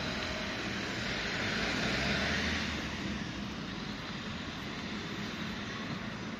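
Steady city street noise: a low rumble and hiss of traffic, swelling for a couple of seconds about a second in, as if a vehicle passes, then settling back.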